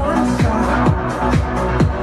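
Electronic dance music with a steady kick drum a little over twice a second, played back through a Samsung HW-C430 soundbar and its subwoofer.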